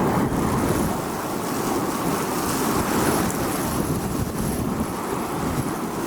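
Strong wind blowing in a continuous gusty rush of noise, heaviest in the low range, swelling a little midway.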